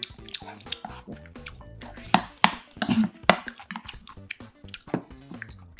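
Close-miked eating sounds: wet chewing, and a spoon clinking and scraping in a rice bowl, with a run of sharp clicks about two to three and a half seconds in.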